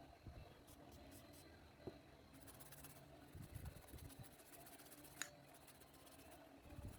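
Near silence: room tone with a few faint clicks and light handling noises, one sharper click about five seconds in.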